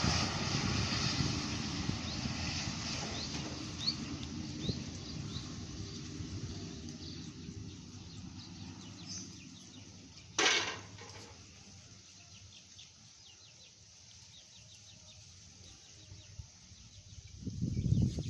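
A heavy vehicle's engine rumble fading as it drives away, with a short hiss about ten seconds in. Birds chirp faintly in the quiet that follows, and another vehicle approaches loudly near the end.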